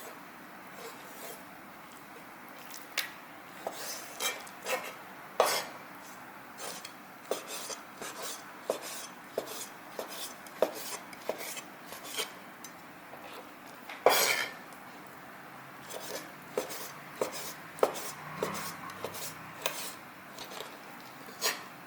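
Kitchen knife chopping and tapping on a cutting board, with irregular sharp knocks about once a second and clinks of utensils. The loudest knock comes about two-thirds of the way through.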